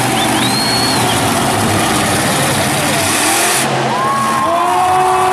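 Monster truck engine running hard at high throttle as the truck accelerates across a dirt arena and jumps, with loud, dense arena noise around it.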